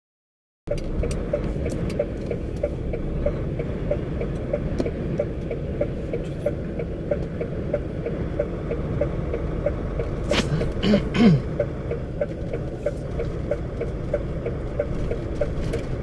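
Vehicle on the move, heard from inside: a steady low rumble of engine and tyres on a snowy road, starting just under a second in, with a light regular ticking. A short louder burst of sound breaks in briefly a little after ten seconds.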